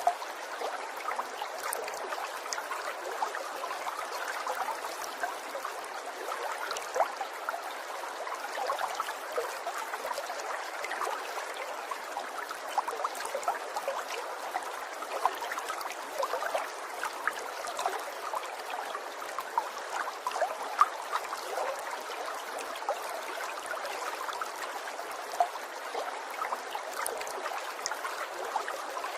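Water trickling steadily, a continuous babble flecked with many small drips and splashes.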